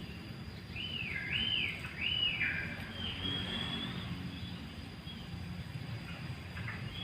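Lovebird chirping: three quick arching chirps about a second in, then a longer high note, over a steady low background hum.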